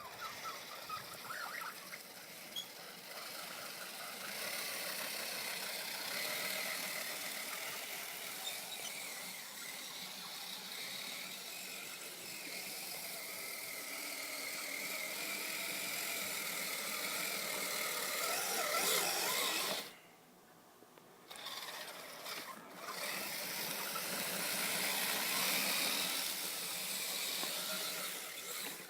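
Kyosho Blizzard SR radio-controlled snow tractor driving: its electric motor whines, rising and falling in pitch, over the hiss of the tracks in the snow. It stops briefly about twenty seconds in, then starts again.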